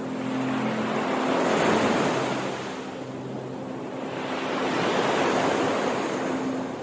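Ocean surf: two waves swell and wash in, one peaking just under two seconds in and the next about five seconds in, each fading away between. A few soft, steady low tones sound underneath.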